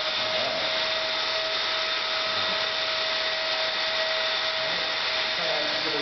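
Shark upright vacuum cleaner's motor running steadily at full speed: a constant whine over a rush of air.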